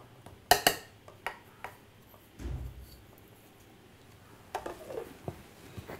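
A few clinks and knocks of kitchenware on a stainless steel mixer-grinder jar as powdered jaggery is tipped in from a small bowl. The sharpest knock comes about half a second in, with a dull thump around two and a half seconds and more light clicks near the end.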